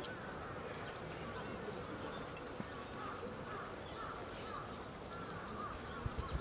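Quiet outdoor background: a steady buzzing haze with scattered short, faint chirps.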